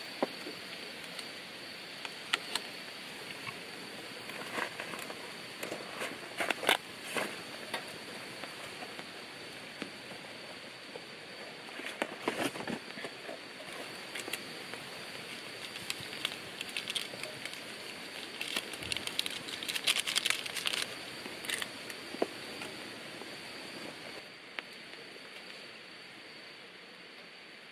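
Wood fire crackling and popping under a wok of stir-fry and a mess tin of noodles boiling, over a steady hiss; quieter near the end.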